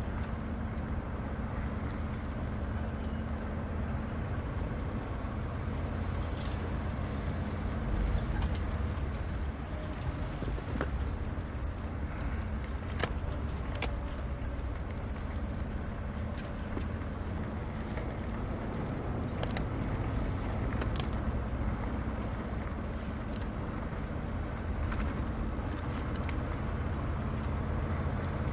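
Car engine and road noise heard from inside the cabin, a steady low rumble, with scattered sharp clicks and small rattles as a wooden case's brass latches are worked and its contents handled.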